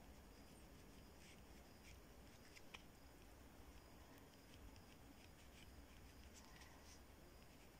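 Faint scratching of a pen writing on paper in short, irregular strokes, over near silence.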